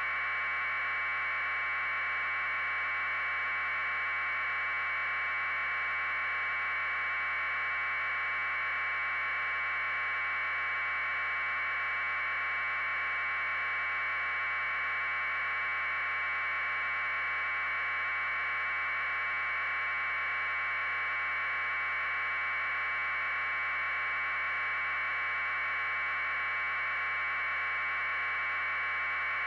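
Steady electronic hiss confined to a narrow middle-pitched band, unchanging throughout, with no other sound: static on the audio channel of a silent video feed.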